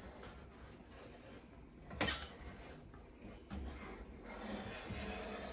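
Hand-operated barrel-type caulking gun being squeezed to lay a bead of sealant, its trigger and ratchet mechanism clicking quietly. There is one sharp click about two seconds in and a softer one a second and a half later.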